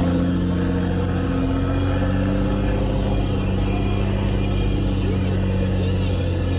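Toyota Land Cruiser 80 Series diesel engine running at a steady speed, its pitch shifting slightly about two seconds in.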